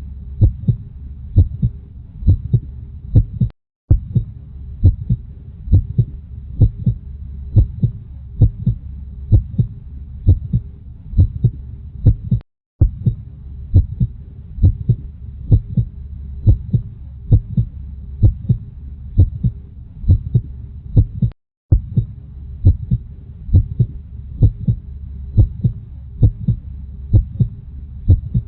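Human heartbeat: a steady lub-dub double thump repeating over a low rumble. The sound drops out completely for a moment about every nine seconds.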